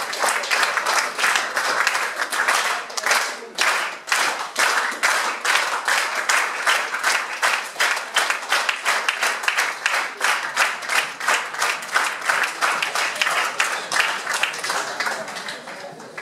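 Theatre audience applauding, clapping together in a steady even rhythm; it thins out near the end.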